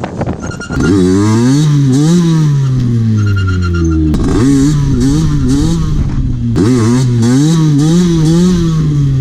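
Tuned 77cc two-stroke Derbi Senda engine revving up and down over and over as the throttle is worked, loud from about a second in, with a brief drop in revs about four seconds in.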